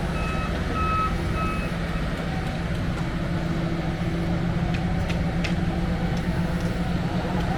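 Heavy construction machine's engine running steadily with a low rumble. A reversing alarm beeps about twice a second at the start and stops about a second and a half in.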